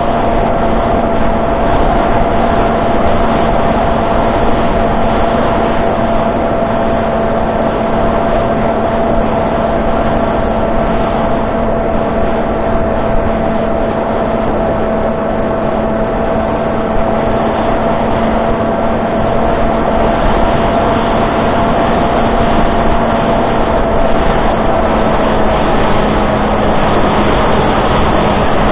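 Electric motor and pusher propeller of an S800 flying-wing model plane, picked up by a camera on the airframe: a steady whine over rushing air noise, dipping slightly in pitch near the end.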